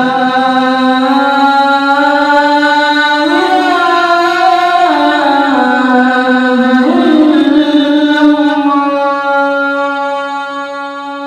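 A man's solo voice chanting the closing line of the Islamic call to prayer (adhan), 'lā ilāha illā llāh', stretched into one long, ornamented melody that steps up and down in pitch and fades out near the end, in the Makkah Grand Mosque muezzin style.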